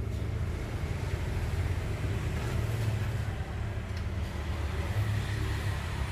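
Steady low background hum, with a faint click about four seconds in as small metal parts are handled at the tool's collet.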